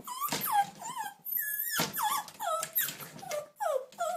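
Small dog yipping and whining excitedly while it jumps for a stocking: a rapid string of short high calls, each falling in pitch, with one longer steady whine about a second and a half in.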